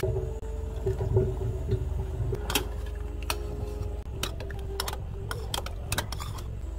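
A metal ladle breaking up soft tofu in a stainless steel pot of broth: wet squishing, then several sharp clinks as the ladle strikes the pot.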